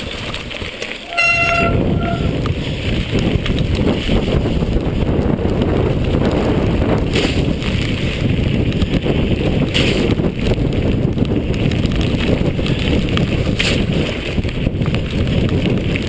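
Mountain bike descending fast on a wet, stony trail: tyres rolling and splashing over gravel and the bike rattling over bumps, under heavy wind rumble on the camera's microphone. A short steady tone sounds about a second in.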